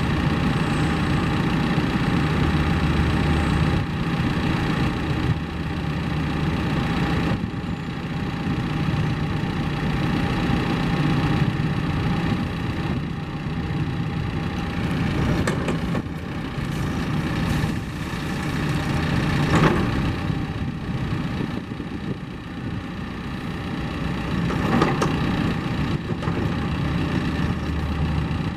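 John Deere 310SL backhoe loader's four-cylinder diesel engine idling steadily. A few brief sharp knocks come through, the clearest about 20 and 25 seconds in.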